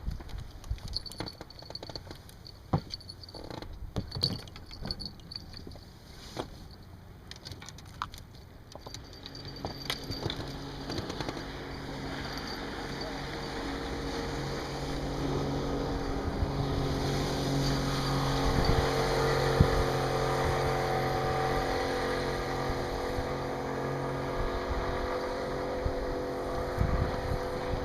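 Knocks and clatter of gear handled in a rubber boat, then a small outboard motor running from about ten seconds in, a steady hum that grows louder as the boat gets under way.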